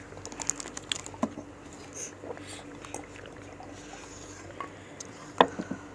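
Soft, scattered clicks and small eating-and-drinking sounds at a table: sips from a glass and gloved fingers dipping fruit into a stone mortar of rujak sauce. One sharper click comes near the end.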